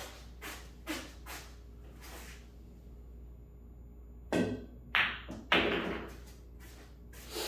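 Pool balls on a pool table: a few faint clicks early on, then three loud sharp knocks in quick succession about four and a half to five and a half seconds in, as cue and balls strike.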